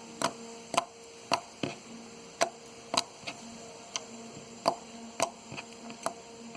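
Clicky slime being squeezed and pressed in the hands, giving sharp, irregular clicks and pops about twice a second.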